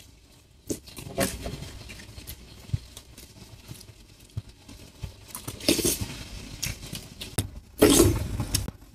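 Eating sounds: a spoon and fork clinking and scraping on a bowl and plate, with chewing between, and two louder noisy stretches around six and eight seconds in.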